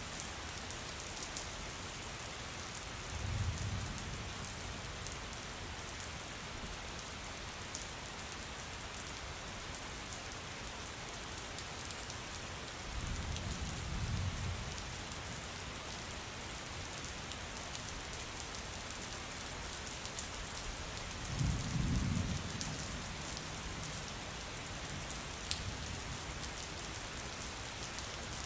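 Steady rain falling on a surface, with individual drops ticking, and three short low rumbles of distant thunder, about 3, 13 and 22 seconds in.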